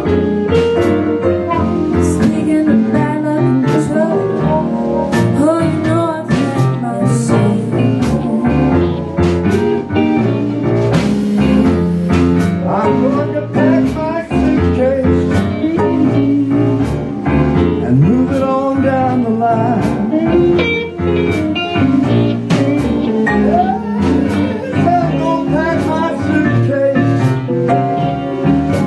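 A live blues band playing: drum kit, electric bass and guitars, with a harmonica played into a microphone and a woman singing.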